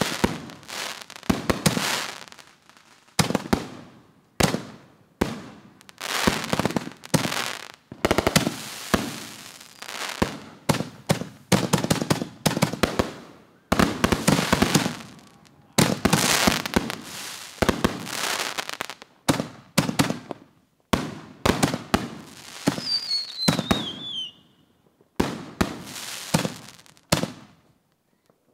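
Consumer aerial fireworks going off in rapid succession: repeated sharp bursts, each trailing off in crackle, with a falling whistle a little before the end.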